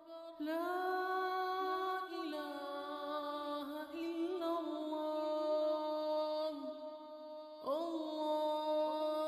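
Background vocal music: a voice chanting long, held notes, sliding up into a new note about half a second in and again near the end.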